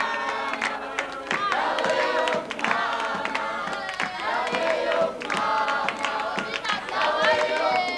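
A group of children and young people singing together, with hand clapping.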